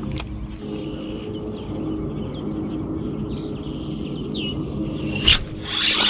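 Pond-side ambience: a steady high insect drone with a few short down-slurred bird calls over a low steady hum. Two sharp clicks stand out, one just after the start and one near the end.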